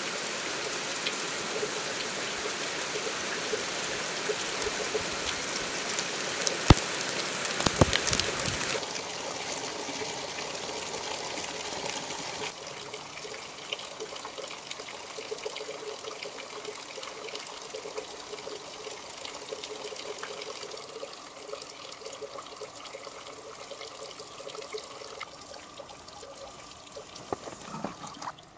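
Heavy rain falling in a thunderstorm: a steady hiss of pouring water that drops off in steps, quieter after about nine seconds and again after about twelve. A few sharp knocks stand out around seven and eight seconds in.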